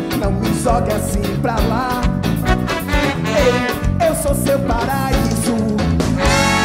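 Live band music: drum kit with cymbals, keyboard and saxophone playing an upbeat song, with a male lead vocal over it.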